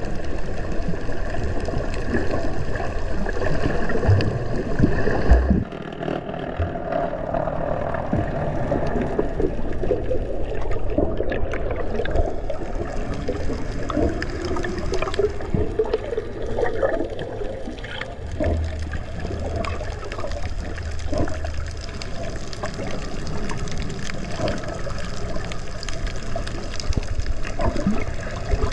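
Water rushing and bubbling around an underwater camera while snorkelling, with many small scattered clicks and knocks; the sound drops abruptly to a quieter level about five and a half seconds in.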